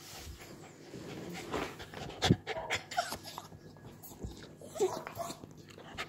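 A dog panting, with short whimpers, among rustles and knocks; a sharp knock a little over two seconds in is the loudest sound.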